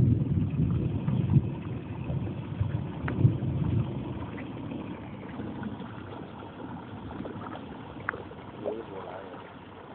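Wind rumbling in gusts on a phone's microphone, strongest in the first four seconds and fading after, with a couple of faint clicks.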